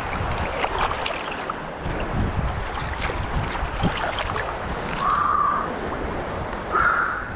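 Lake water lapping and sloshing around a person wading in, with wind buffeting the microphone. Two short high tones sound about five and seven seconds in.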